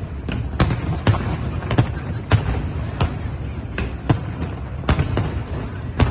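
Fireworks going off in a continuous barrage: irregular sharp bangs, about two a second, over a steady low rumble of more distant bursts.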